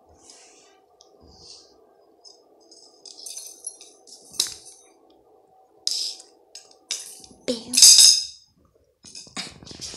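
Cornish Rex kittens playing on a hard stone floor: a string of sharp rattling and jingling clatters, the loudest just before the end, over a faint steady hum.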